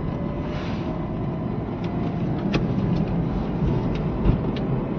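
Road and engine noise inside a moving Renault Triber's cabin: a steady low rumble, with a few faint clicks.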